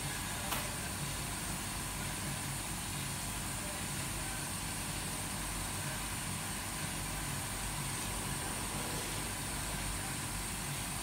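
Steady mechanical hum of workshop machinery, even throughout, with one faint click about half a second in.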